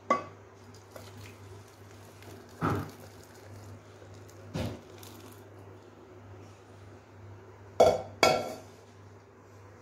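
A metal pan knocking against the rim of a glass dish as thick cooked milk vermicelli is poured and scraped out of it: five sharp clinks with a short ring, spaced out over several seconds, with the last two close together near the end.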